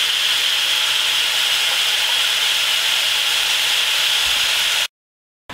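Water from a kitchen sink sprayer pattering onto a bowl of fresh spinach leaves as they are rinsed, a steady hiss that stops abruptly near the end.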